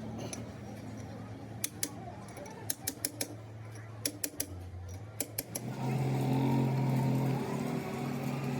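Sharp metal clinks and taps, a dozen or so in small clusters, over a steady low machine hum that grows louder about six seconds in.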